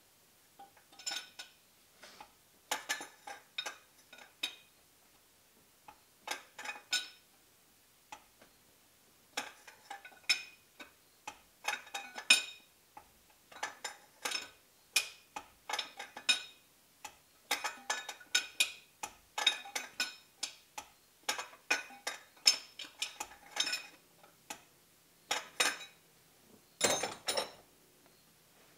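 A 24 mm 12-point box-end wrench clinking in short irregular clusters on the oil pressure sensor of a 3.5-litre V6: the wrench is fitted onto the sensor, turned a little, lifted off, flipped and refitted, over and over.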